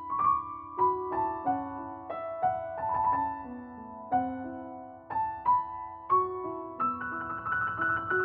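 Background music: a gentle piano melody of single struck notes that ring and fade, a few to the second.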